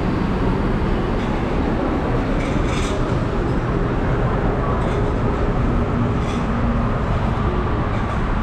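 Steady low rumble of vehicle engines, with a few faint light clicks over it.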